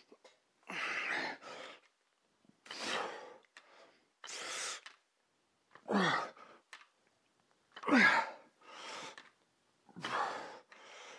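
A man's forceful breaths while curling a heavy dumbbell, a sharp exhale about every one to two seconds, two of them loud, strained grunts about six and eight seconds in.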